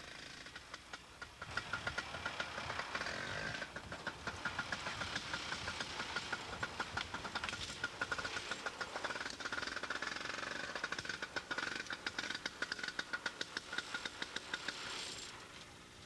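Snowmobile engine running at low speed with a fast, uneven putter, stopping shortly before the end.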